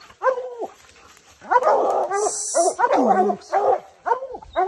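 Bear hounds barking and bawling, several dogs at once. Their short, repeated calls pile up over one another through the middle, then come singly again near the end.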